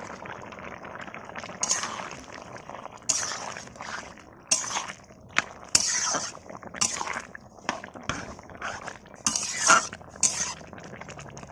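Metal utensils clinking and scraping against a karai as small fish are added to a simmering gourd curry, about a dozen separate strokes over a steady bubbling.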